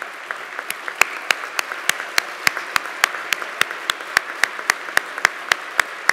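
Audience applauding, with one person's claps close to the microphone standing out at a steady pace of about three a second from about a second in.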